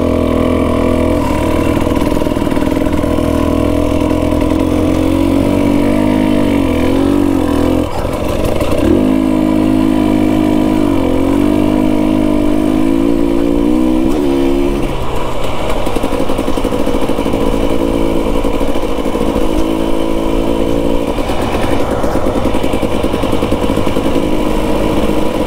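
KTM 250 XC-W TPI single-cylinder two-stroke dirt bike engine running under changing throttle while being ridden on a trail, its pitch rising and falling, with a brief drop about 8 seconds in.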